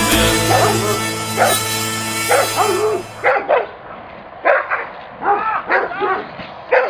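A dog barks in short, yelping barks, about two a second. It first sounds under the last held chord of a song; the music cuts off about three seconds in and the barking carries on alone.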